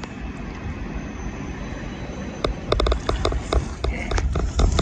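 Low rumbling wind noise on the microphone beside a river. About halfway through, an irregular run of sharp clicks and crunches begins, several a second, as the fish is brought in to the gravel shore.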